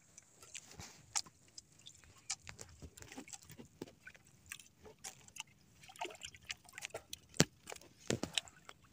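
Faint irregular clicks and small knocks with light water sounds as a squid handline is pulled in hand over hand over the side of a small wooden outrigger boat, with a sharper tick near the end.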